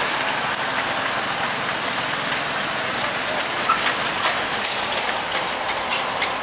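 Diesel engine of a heavy six-wheel box truck running as the truck slowly rounds a tight hairpin bend, heard as a steady, noisy rush of engine and road sound.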